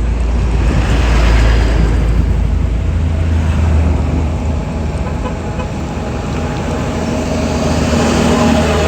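Tour bus diesel engine running close by with a low, steady drone, growing louder about a second in and again near the end as the bus moves.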